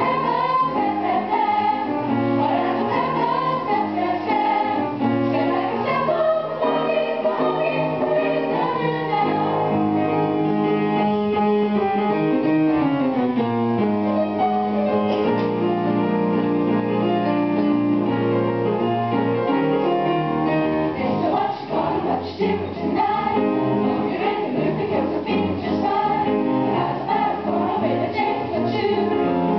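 Mixed youth choir singing a harmonised song in several parts. About halfway through, the voices slide down in pitch together, and the singing turns busier and more rhythmic near the end.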